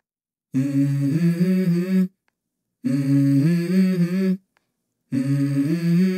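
A solo voice humming a wordless melody in three short phrases, each stepping between a few notes, with brief silences between them and no backing instruments.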